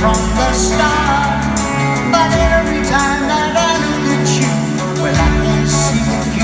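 A live band playing a pop-rock song with a man singing the lead vocal, heard from the seats of a large arena.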